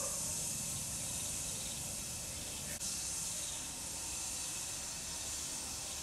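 Small stiff brush scrubbing a grimy part of a backpack sprayer's engine, a steady scratchy hiss with one brief break about three seconds in.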